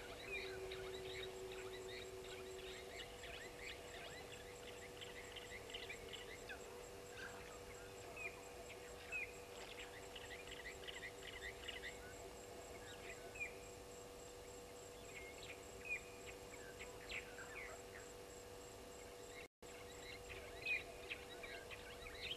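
Wild birds calling: many short overlapping chirps and whistles, thick in the first half and thinning out later, over a faint steady hum. The sound cuts out for an instant about three-quarters of the way through.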